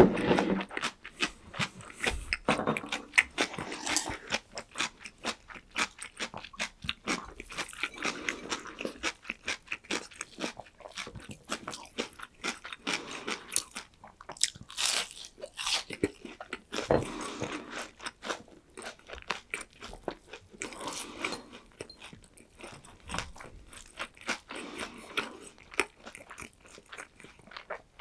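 Close-up chewing and crunching of crisp food, most likely a breaded fried pork cutlet, with many small crackles and a few louder bites.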